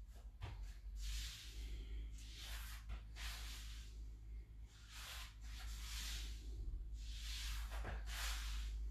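A man breathing slowly and audibly during a kneeling reach-through stretch, about five soft breaths in and out, over a steady low hum.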